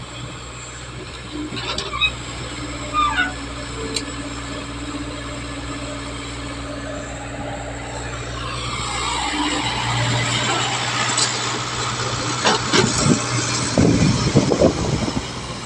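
Diesel engine of a Hyundai excavator running at a steady pitch while it digs, the noise swelling in the second half. Near the end come a run of knocks and clatters as the bucket works soil into a tractor trolley.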